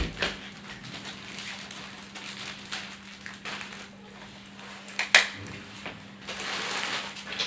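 Plastic snack packets crinkling and rustling as they are handled and laid out, with a few sharp clacks, the loudest right at the start and about five seconds in. A faint steady hum runs underneath.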